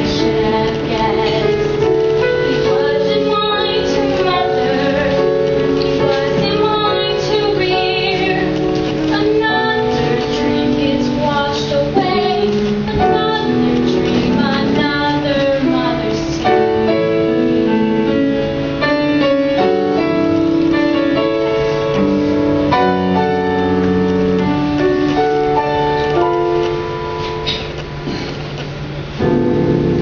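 A musical-theatre song: young female voices singing held, melodic lines over piano accompaniment. The music drops in level briefly near the end.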